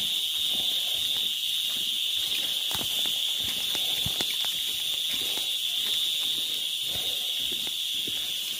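Steady high-pitched drone of insects, with the irregular soft thuds of footsteps in rubber boots on a muddy trail.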